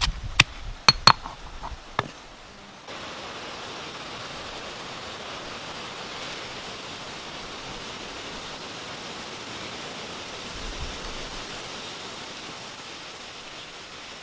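A stone pestle strikes sharply several times in a stone mortar as chilies and garlic are pounded. About three seconds in it switches to a steady sizzle of snails cooking in their shells over a fire, their juices bubbling.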